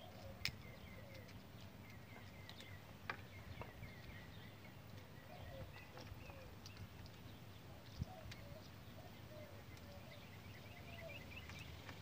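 Faint birdsong in the background, broken by a few sharp metallic clicks, about half a second in, around three seconds and around eight seconds, as the stem's fork-clamp bolts are worked loose with an Allen key.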